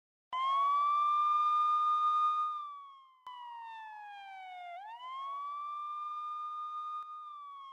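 Siren wailing: the pitch sweeps up quickly, holds high for about two seconds, then slides slowly down, and the cycle starts again about halfway through, quieter than the first.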